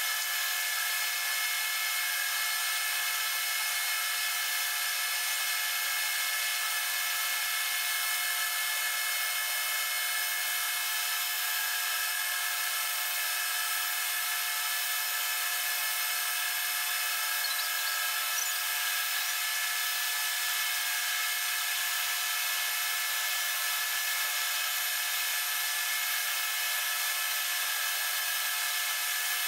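Metal lathe running steadily under power while single-point threading a steel screw at 8 threads per inch, its spindle and gear train giving an even whine of many tones.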